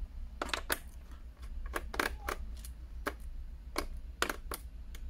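About a dozen small, irregular clicks and taps from a screwdriver and fingers working screws out of a laptop's plastic bottom case, over a steady low hum.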